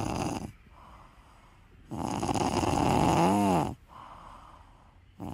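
A sleeping cat snoring: snoring breaths come every two to three seconds. The longest runs from about two seconds in to nearly four, with a brief whistle-like tone that rises and falls near its end.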